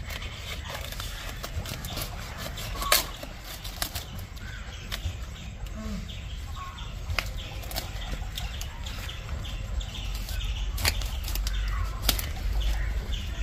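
Cauliflower plants being cut by hand with a knife: leaves rustling and a few sharp snaps as thick stems and leaves are cut and broken, the loudest about three seconds in.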